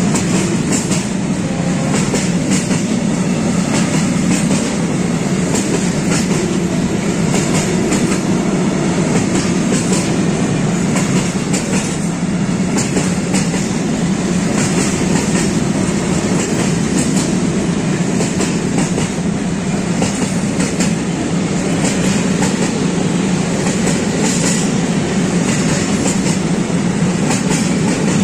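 Freight train of silo wagons for bulk powder passing at speed: steady rolling rumble of wheels on rail, broken by frequent clacks as the wheels cross rail joints.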